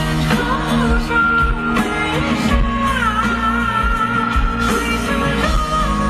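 Live pop-rock band music with drums and bass. About halfway in, a high melody line glides up and holds a long wavering note.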